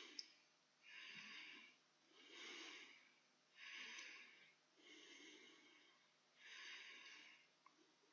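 Near silence with faint, even breathing: six soft breaths in and out, each about a second long and about a second and a half apart.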